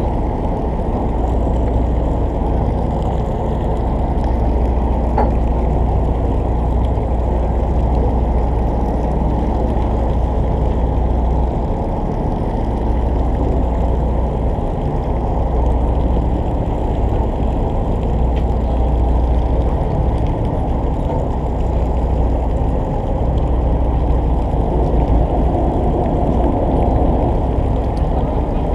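Steady low rumble of the fishing boat's engine running at idle, with wind and water noise.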